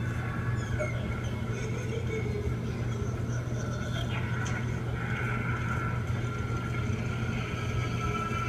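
A video's soundtrack played through a speaker and picked up by a microphone in the room: a steady low hum and hiss with faint wavering higher tones over it.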